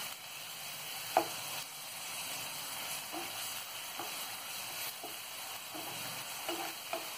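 Ground green chilli, garlic and cumin paste and chopped onion sizzling in hot oil in a frying pan, stirred with a wooden spatula that knocks against the pan now and then, sharpest about a second in.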